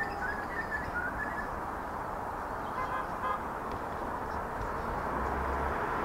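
Siemens Nexas electric train approaching, its running noise a steady rumble that slowly grows louder towards the end. Birds chirp in the first second or so, and two short beeps sound about three seconds in.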